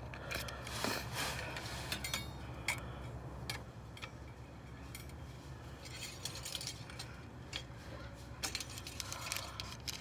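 Scattered clicks, rustles and light metallic clinks of the car's oil dipstick being wiped with a paper napkin and handled close to the microphone, over a faint low hum.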